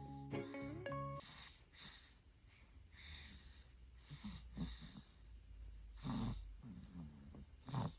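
A newborn baby's noisy sleep breathing with snores, about every second and a half, the loudest two about six seconds in and near the end. Guitar music ends about a second in.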